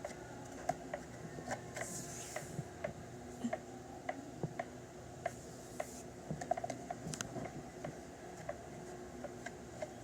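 Delta Gold 50 cm electric fan running with a steady low hum, over which come many irregular light clicks and ticks.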